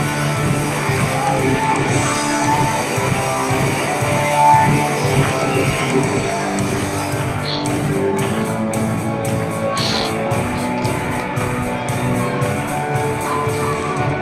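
Live worship band music, guitar to the fore, playing steadily.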